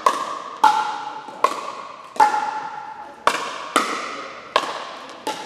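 Pickleball rally: paddles striking the hard plastic ball back and forth, about eight sharp, ringing pops at roughly one every three quarters of a second. Each pop echoes in the gymnasium.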